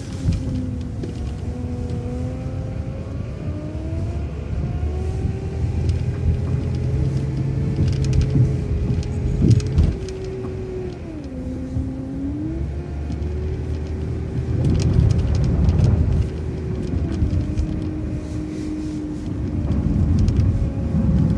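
City transit bus driving at low speed: low engine rumble with a drivetrain whine that rises and falls in pitch as the bus speeds up and slows down, with some rattling about halfway through.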